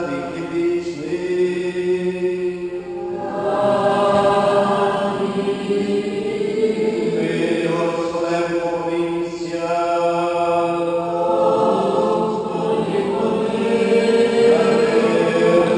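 Voices singing a sung liturgical chant of a Ukrainian Catholic (Byzantine-rite) Mass, with long held notes that change pitch every few seconds.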